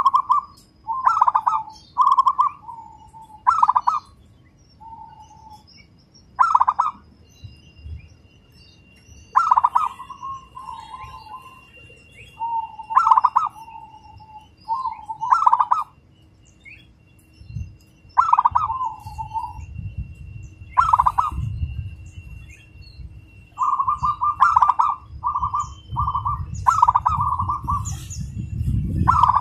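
Zebra dove cooing: short repeated coo phrases, several in quick succession at first, then spaced out with pauses, then a fast, close-set run near the end. A faint steady high tone runs underneath, and a low rumble comes in a little past halfway.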